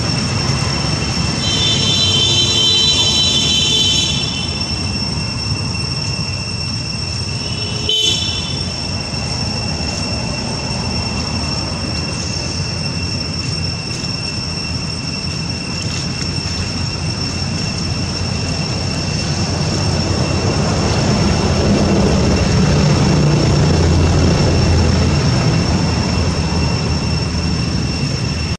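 Outdoor ambience: a steady, high-pitched two-tone drone throughout, a short high tonal call or horn-like sound about two seconds in and again briefly near eight seconds, and a low rumble that swells about twenty seconds in and fades near the end.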